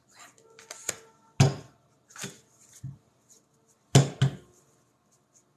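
Tarot cards being shuffled by hand, rustling, with several sharp knocks of the cards against the table; the two loudest come about one and a half seconds in and four seconds in.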